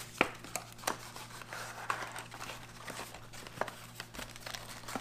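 A cardboard food box being opened and handled: its flap and sides rustling and scraping, with a few light clicks and taps.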